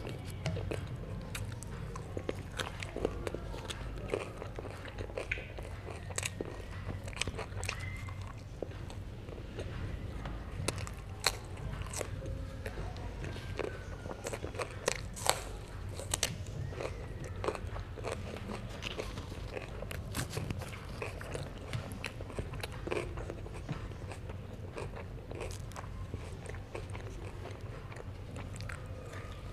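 Close-miked eating of herring: biting and chewing, with crunchy, clicking mouth sounds in an uneven run over a steady low hum.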